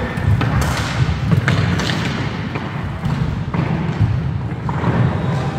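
Inline skate wheels rumbling across a wooden sports-hall floor, with frequent sharp clacks of roller hockey sticks striking the ball and the floor.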